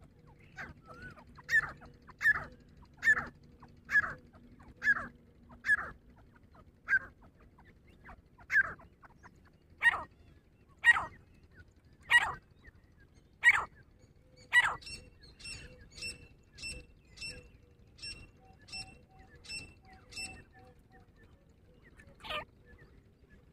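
Grey francolin calling: a run of loud, sharp calls at about one a second, spacing out a little around the middle, then a quieter run of thinner, evenly spaced calls at about two a second, and one last loud call near the end.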